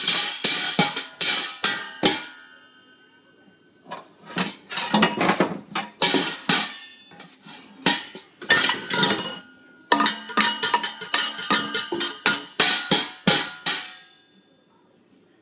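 Toddler banging a wooden spoon on stainless steel stockpots and pans: rapid clanging strikes with metallic ringing, in several flurries with short pauses, stopping about 14 seconds in.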